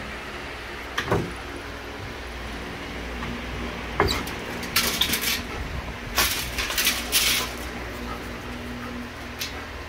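Two sharp knocks, about one and four seconds in, then two short bursts of clattering and rattling, like hard parts being handled, over a steady low hum.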